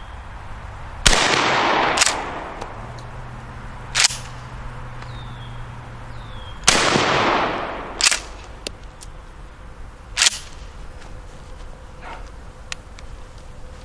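Two 12-gauge buckshot shots from a Coast to Coast Master-Mag pump-action shotgun (a house-brand Mossberg 500 with no choke), about five and a half seconds apart, each blast with a long fading tail. Shorter, sharper clacks follow each shot as the pump is worked.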